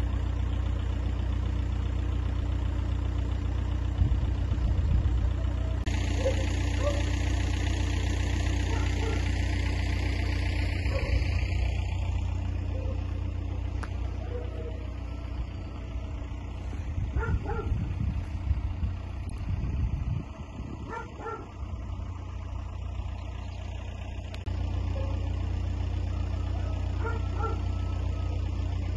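Outdoor ambience: a steady low rumble, with a few short barks from distant dogs scattered through it.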